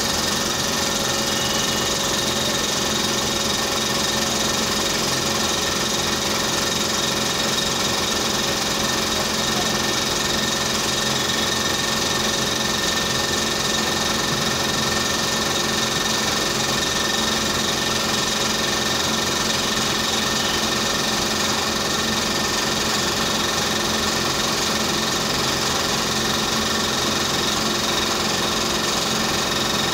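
Dental equipment motor running steadily without a break, with a constant whine over an even machine hum.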